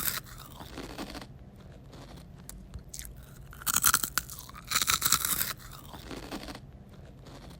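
Crunching: two quick bursts of crackly crunches, about four and five seconds in, each under a second long, over a low steady hum.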